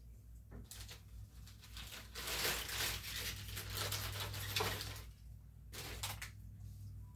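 Rustling, crinkling handling noise at a kitchen counter, loudest for about three seconds in the middle, with a short burst near the end.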